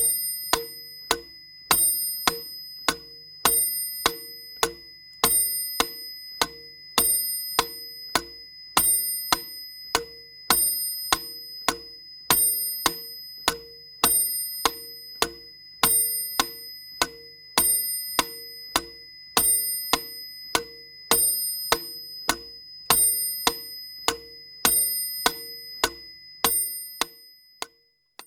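Metronome ticking steadily at about two beats a second, with a bell ding on every fourth beat marking the start of each bar. It stops shortly before the end.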